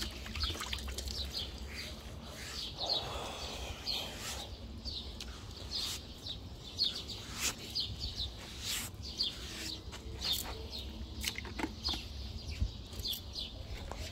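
Small birds chirping in many quick, short, high notes, over the splashing and dripping of a wet sponge being dipped in a water bucket and rubbed over a horse's coat.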